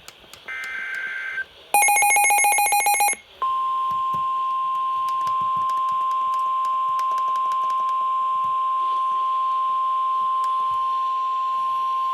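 Emergency Alert System signal starting a new severe thunderstorm warning. Two short screechy data bursts are followed about two seconds in by a brief, loud, harsh buzzing tone, then a single steady high alert tone held for about nine seconds.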